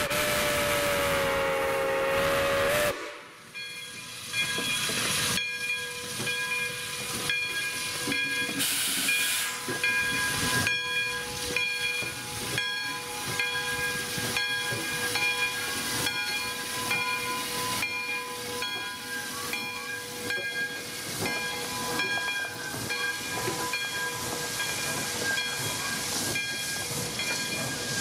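Whistle of the 1919 Baldwin 4-6-2 Pacific steam locomotive Santa Fe #3415 blowing a long blast that cuts off about three seconds in. Then the train rolls past with steam hissing and irregular clicking from the wheels, plus a louder burst of hiss near the middle.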